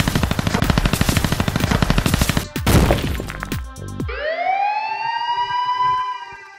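Rapid machine-gun fire sound effect for about two and a half seconds, then a short burst, then a single siren-like wail that rises in pitch, holds and fades near the end.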